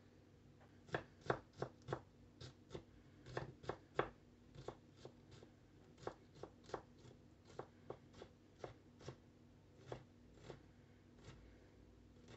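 Chef's knife chopping a green pepper on a wooden cutting board: a string of irregular sharp knocks of the blade against the wood, about two or three a second, starting about a second in.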